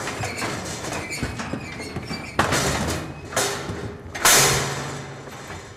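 Steel cattle squeeze chute clanging as its lever-worked gates and bars are slammed shut on a calf. There are three loud metallic clangs, each ringing on: the first about two and a half seconds in, then one a second later, and the loudest just after four seconds.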